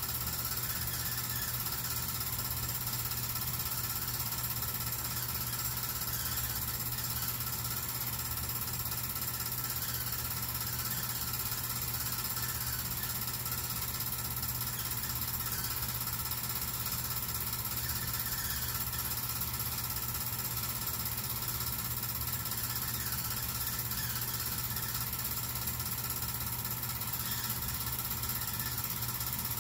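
An 8mm film projector running with a steady mechanical clatter.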